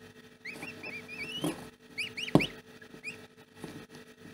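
Newly hatched goslings peeping: short, arched, high-pitched peeps in quick runs, over a faint steady hum. A single sharp knock about two and a half seconds in is the loudest sound.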